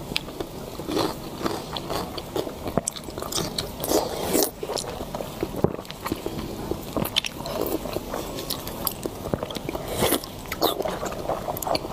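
Close-miked eating sounds from soft congealed duck blood: bites, chewing and wet mouth clicks, along with gloved hands squishing the slippery blocks in chili-oil sauce. Sharp little clicks and smacks come irregularly throughout.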